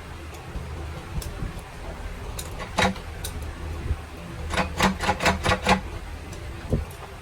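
Sharp metal-on-metal knocks from work on a bus gearbox: a single clank, then a quick run of about six ringing strikes, and one more knock near the end, over a low steady hum.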